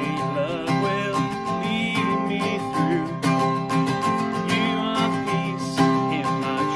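Upbeat song music with a strummed acoustic guitar.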